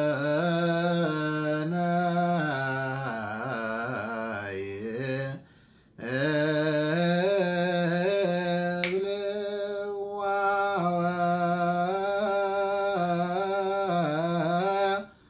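A solo male voice chants an Ethiopian Orthodox Ge'ez Abun hymn (zema) unaccompanied, in long, slowly bending held notes. He breaks off for a breath about five seconds in, then carries on.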